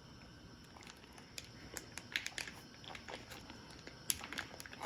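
Quiet room with scattered light clicks and taps of small objects being handled, sparse at first and more frequent from about a second and a half in.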